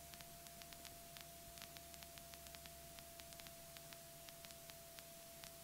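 Near silence: faint steady hiss of the aircraft's radio and intercom audio line, with a thin steady tone and scattered short crackling clicks, several a second.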